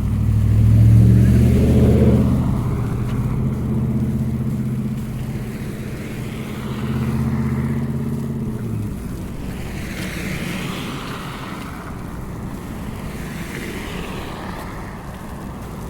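Road traffic: a motor vehicle's engine running close by, loudest a second or two in and dying away about nine seconds in, followed by fainter noise of another passing vehicle.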